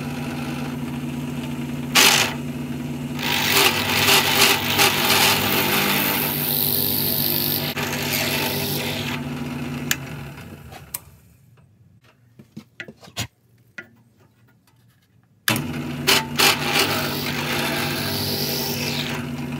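Drill press running at 1500 RPM, its bit boring a 7/8-inch-deep bolt hole into a hardwood handle, with the cutting noise coming and going over the steady motor hum. The machine stops about 11 seconds in, a few clicks follow, and it starts up again about 15 seconds in to bore the next hole.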